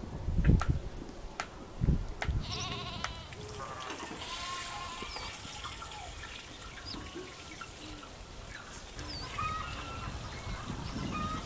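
Livestock bleating: one quavering bleat about two and a half seconds in, with weaker calls a couple of seconds later. Two dull thumps in the first two seconds are the loudest sounds.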